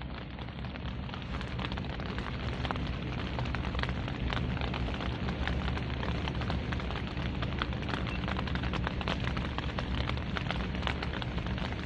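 Wind buffeting the microphone: a steady low rumble with dense crackling, growing slightly louder over the first few seconds.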